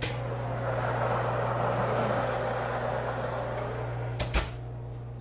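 Countertop electric convection oven running, a steady hum under the whoosh of its fan, which grows louder after a click as the door is opened and then slowly fades. A sharp knock about four seconds in as the baking tray is taken out.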